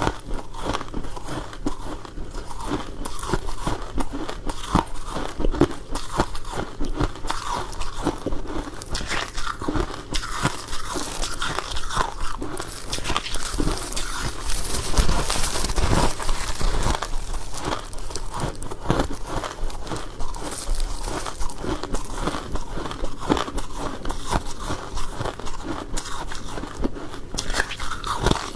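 Close-up crunching and chewing of soft, powdery freezer frost ice, many small crackling crunches in quick irregular succession, thickest about halfway through.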